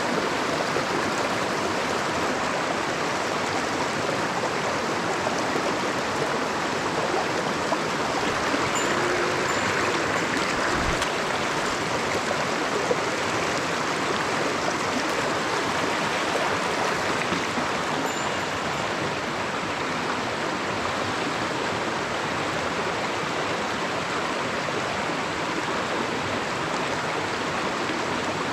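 Small mountain stream flowing, a steady rush of water.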